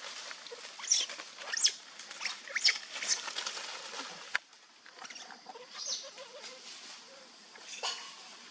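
Baby monkey giving a run of short, high-pitched squeaks, a few more scattered later, with one sharp click about four seconds in.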